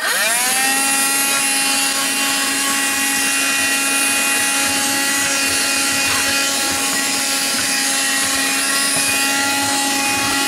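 Black & Decker Dustbuster handheld vacuum switched on: its motor spins up within about half a second, then runs steadily with a high whine and a rush of air.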